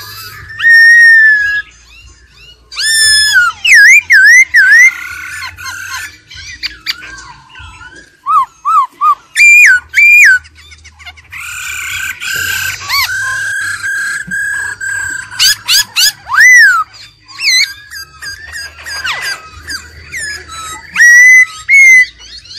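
Black-throated laughingthrush singing a loud, varied run of clear whistled phrases. The notes swoop up and down, with a quick run of three falling notes and a long held note near the middle.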